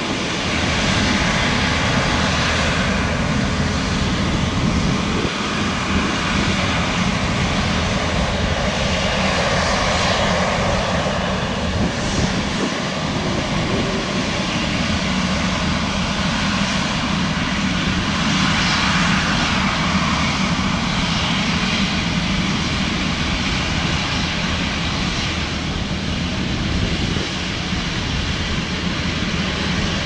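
Airbus A350's Rolls-Royce Trent XWB turbofan engines running at low taxi power: a steady jet engine noise that holds level throughout.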